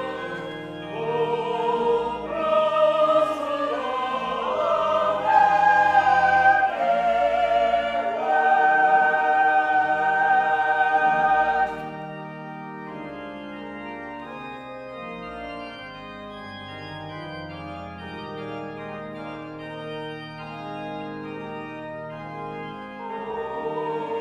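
Sacred choral music with organ: voices sing a wavering melody over held chords, then cut off about halfway, leaving quieter sustained organ chords that swell again near the end.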